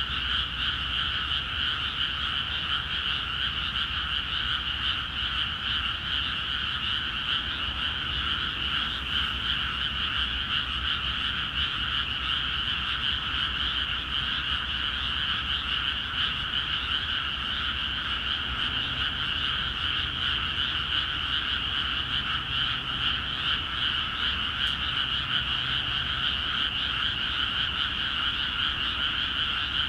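A dense chorus of many frogs in flooded rice paddies, calling without pause so that their calls merge into one steady, even sound. It is a breeding chorus, set off by the water let into the fields.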